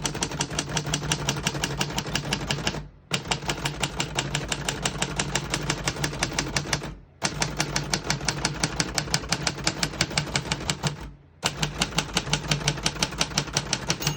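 1948 Royal Arrow portable typewriter being typed on rapidly, its type bars striking in a steady run of about nine strikes a second. The typing is broken by three short pauses.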